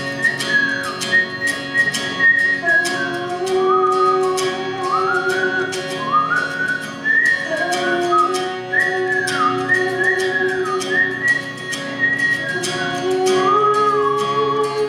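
Live acoustic song in an instrumental passage: guitar strumming steadily under a high wordless melody line that slides between notes, heard by the tagger as whistling.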